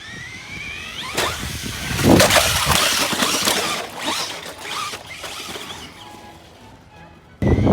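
Traxxas RC car's electric motor whining and rising in pitch, then a loud stretch of scraping and clattering noise, loudest about two seconds in and fading near the end.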